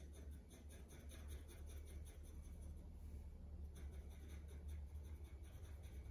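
Faint, quick scratching of a pencil laying light hatching strokes on paper, several strokes a second, with a short pause a little past halfway.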